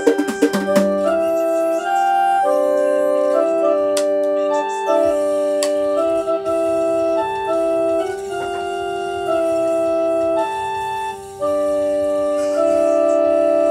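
Electronic organ or keyboard playing sustained chords that change about every second or two over a steady held note. A quick clatter of clicks sounds right at the start.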